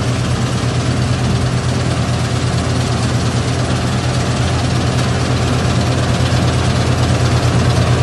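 Combine harvester running steadily as it cuts standing wheat: a deep, even engine drone under a dense wash of machinery noise, growing a little louder near the end.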